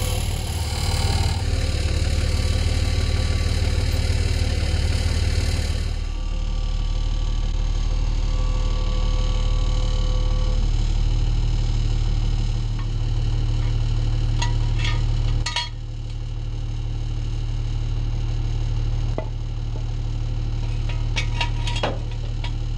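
An engine running steadily at idle, with a few sharp clinks and knocks about two thirds of the way through and again near the end.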